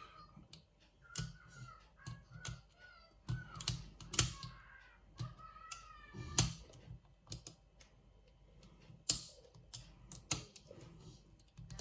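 A steel lock pick, 25 thousandths thick, working the pins of a challenge lock under tension: irregular sharp clicks and scrapes, with a few short squeaky tones in the first half.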